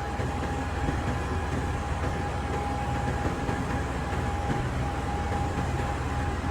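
Large diesel engine of a CAT 390 excavator running steadily: a deep, even rumble with a thin steady whine above it.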